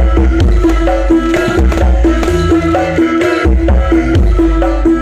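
Loud dance music through a large outdoor sound system during a sound check, with very heavy bass and a fast, repeating hand-drum beat under a melody.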